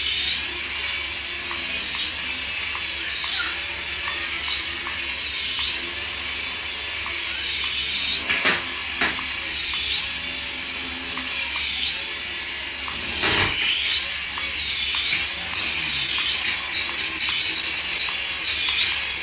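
High-pitched whine of a toy's small electric motor, wavering up and down in pitch about once a second, with a couple of brief knocks partway through.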